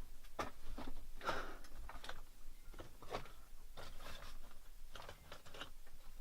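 A run of irregular crunches and scrapes, several a second and uneven in spacing, over a faint low rumble.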